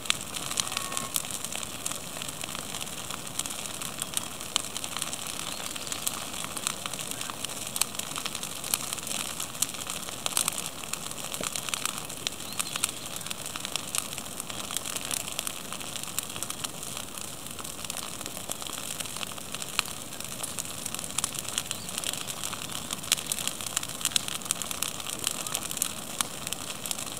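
Small bonfire of dry brush and twigs burning, with frequent sharp crackles and pops over a steady hiss.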